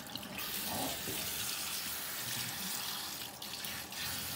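Water running steadily from a pull-down kitchen faucet's sprayer, hissing and splashing onto a wet cat and into the sink.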